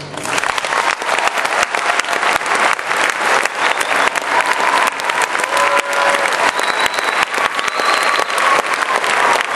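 Audience applauding, a dense steady patter of clapping that breaks out just as the choir's singing stops.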